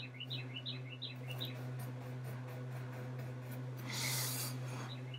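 Fingers pressing and smoothing a sticker onto a paper planner page, with small clicks and a brief rub of hand on paper about four seconds in. A quick run of high, falling chirps sounds over the first second and a half, over a steady low hum.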